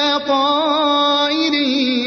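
A man chanting Quran recitation solo in melodic tajwid style. He holds one long, drawn-out vowel, with a wavering ornament in the first half and a slight drop in pitch near the end.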